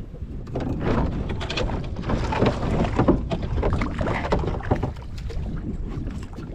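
Water splashing and irregular knocks around a small fishing boat, busiest for the first five seconds, with a low wind rumble on the microphone.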